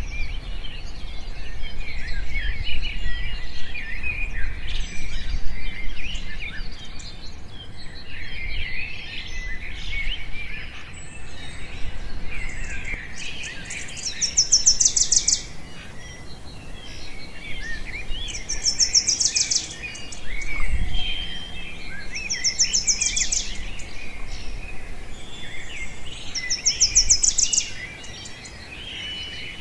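Several birds chirping and calling. In the second half a high, rapid trill of about a second repeats roughly every four seconds.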